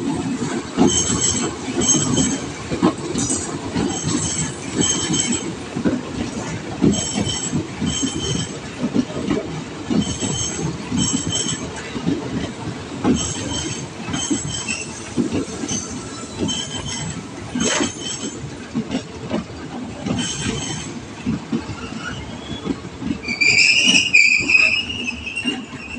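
Ex-Tokyo Metro 7000 series electric commuter train (KRL TM 7022) rolling slowly past into the station: steady wheel rumble with knocks, and short paired clacks every few seconds as the wheels cross the rail joints. Near the end a loud, high-pitched wheel squeal.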